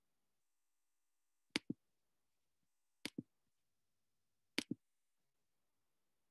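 Computer mouse clicking: three quick double clicks, evenly spaced about a second and a half apart, over near silence.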